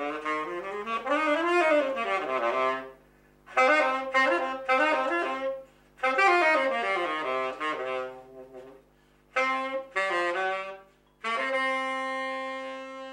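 Saxophone playing phrases of quick runs of notes separated by short pauses, then one long held note from about eleven seconds in that fades away at the end.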